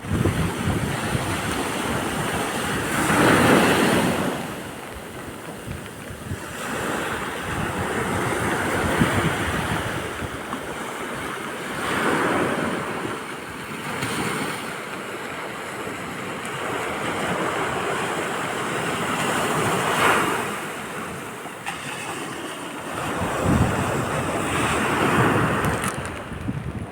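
Sea waves breaking on a beach, each surge swelling and washing back every few seconds, with wind blowing on the microphone.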